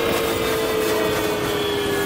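Ola electric scooter's motor whining, its pitch falling slowly as the scooter slows under high regenerative braking with the throttle released, over steady wind and road noise.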